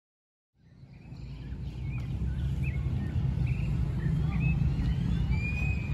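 Outdoor ambience fading in after a moment of silence: birds chirping with short, scattered calls and one longer whistle near the end, over a low, steady rumble.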